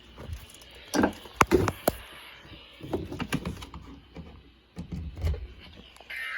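A few sharp clicks and knocks about a second in, followed by softer, duller thumps.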